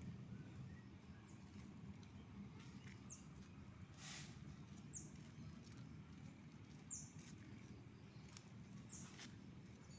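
Faint, short, high chirps that fall in pitch, repeated about every two seconds, typical of a small bird calling, over a low steady outdoor rumble with a couple of brief rushes of noise.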